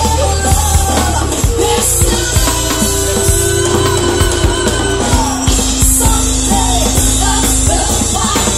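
Live pop-rock band playing: a woman singing into a microphone over keyboard, electric guitar, bass and a steady drum beat.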